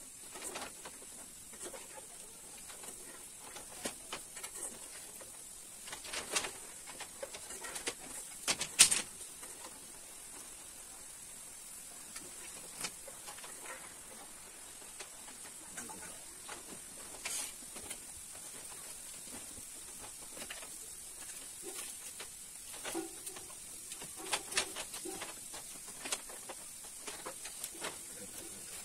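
Bamboo slats knocking and clattering as they are laid and shifted on a bamboo bench frame: scattered light knocks, the loudest about nine seconds in, over a steady high hiss.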